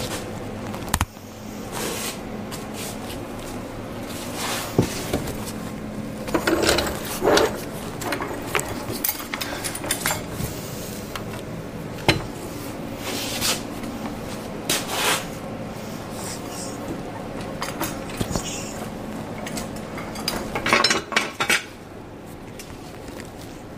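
Scattered metallic clinks, knocks and rattles of a steel floor jack and hand tools being handled, over a steady low hum. The clatter is busiest around the middle and again near the end.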